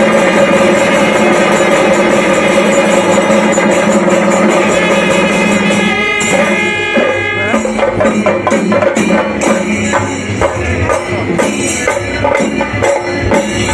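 Loud music with drums and jingling percussion. For the first six seconds sustained tones dominate; after that come sharp, rhythmic drum strikes.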